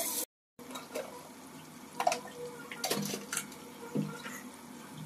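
Kitchen utensils knocking and clinking lightly a few times, about two, three and four seconds in, over a faint background hiss; the sound cuts out completely for a moment just after the start.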